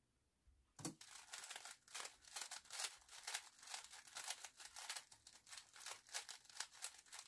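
A 3x3 speed cube turned rapidly by hand in a timed solve: a fast, continuous clatter of plastic layers clicking and snapping. It starts about a second in, right after a single sharp tap on the laptop keyboard that starts the timer.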